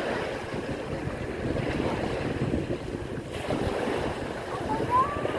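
Small waves breaking and washing up a pebbly shore, with wind buffeting the microphone. A short rising high sound comes near the end.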